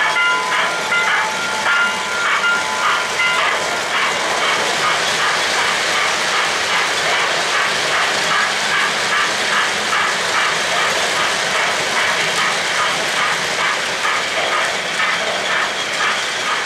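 O-gauge model freight cars rolling past on three-rail track: a steady rumble of wheels with rapid, regular clicking over the rail joints. A run of short, repeated tones sounds over the rumble in the first few seconds.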